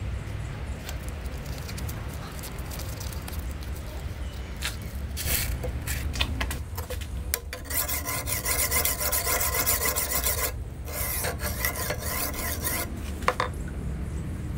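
A coarse carborundum (silicon carbide) sharpening stone rubbed back and forth along the wet steel edge of a kitchen knife: gritty scraping strokes, rough sharpening of the edge. The strokes start about a third of the way in, come fastest in the middle with a brief pause, stop shortly before the end, and are followed by one sharp click. A low steady hum lies underneath.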